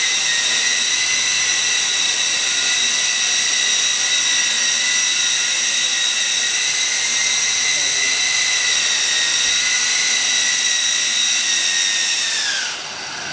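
Twin small electric motors and rotors of a LAMA iv4 RC toy helicopter whining at a steady high speed, then spinning down with falling pitch near the end.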